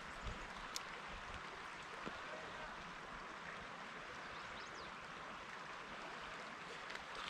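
Faint, steady rush of brook water flowing over rocks, with a single small click under a second in.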